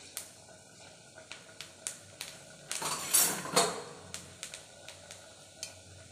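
Mustard seeds and urad dal frying in hot coconut oil in a metal kadai, giving scattered sharp pops and crackles. A louder, denser burst of spluttering comes about three seconds in.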